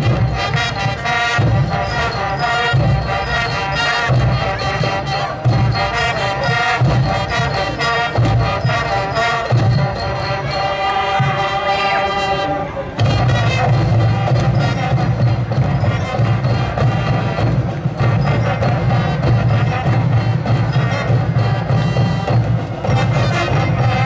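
School band playing, with drums under the tune. A long held chord near the middle gives way about thirteen seconds in to a fuller passage with heavier low drum beats.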